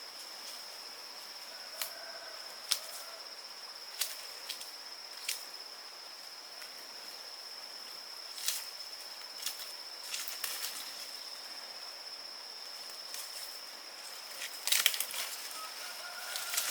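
A steady high-pitched insect drone, such as cicadas or crickets, runs throughout. Scattered sharp clicks and knocks sound over it, with a quick cluster near the end.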